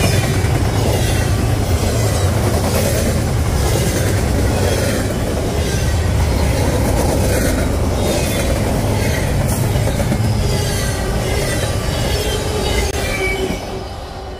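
Double-stack intermodal container train passing at speed close by: a loud, steady rumble of wheels on rail with clacking over the joints and a faint wheel squeal. The sound drops off sharply about a second before the end, as the last car goes by.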